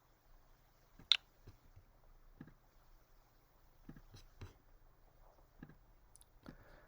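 Computer mouse clicks: one sharp click about a second in, then a scattering of fainter clicks and taps over quiet room tone.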